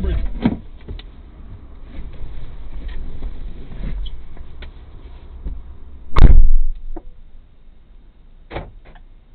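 Car door being shut inside the car: a few soft clicks and knocks, then one loud door thump about six seconds in, and a fainter knock near the end.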